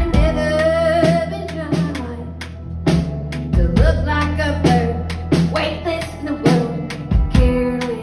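Live band music: a woman singing lead over electric guitar and a drum kit, with regular kick-drum and rimshot hits.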